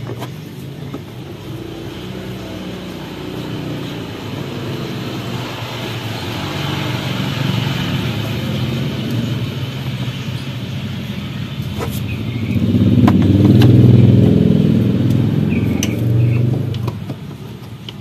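A motor vehicle's engine rumbling, growing louder to its loudest about three-quarters of the way through and then fading, with a few light clicks on top.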